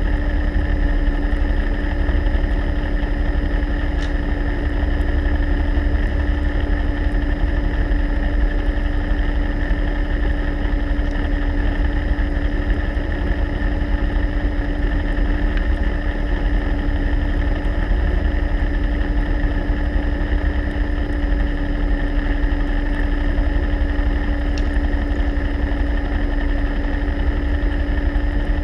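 Steady motor drone heard underwater: a constant low rumble with an unchanging hum on top.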